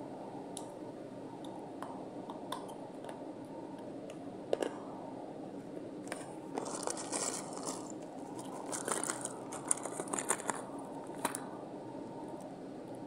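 Natural slate being bitten and chewed right at a clip-on microphone: a few sharp cracks, the loudest about four and a half seconds in, then two spells of gritty crunching, over a steady low background hiss.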